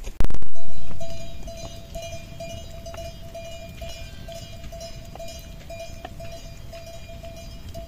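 A loud bump just after the start, then a livestock bell ringing steadily in short repeated pulses, with a few faint clicks from the sheep flock.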